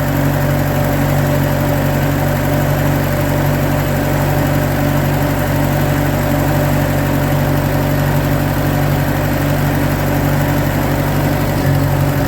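Tractor engine idling steadily. Right at the end it begins to slow and die away as it runs out of fuel, with the fuel shut off before the key.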